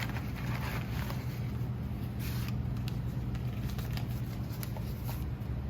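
Light rustling and handling of paper and cardboard packaging, a few faint clicks and scrapes, over a steady low hum.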